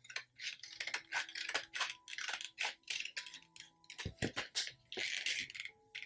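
Scissors snipping through a pen blister pack, the stiff clear plastic and card crackling with each cut in a quick, uneven run of snips.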